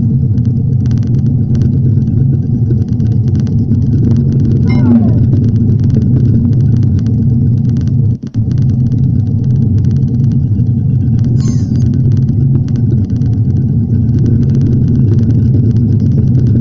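Steady low rumbling hum of a sci-fi virtual-reality ambience, with short falling electronic sweeps about four and a half seconds in and again about eleven seconds in.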